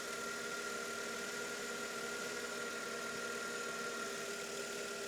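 Mercedes E320 V6 idling steadily, its serpentine belt running over a freshly replaced idler pulley, with a steady high tone over the engine's hum. The belt tensioner is not working hard, a sign that the belt drive is running smoothly.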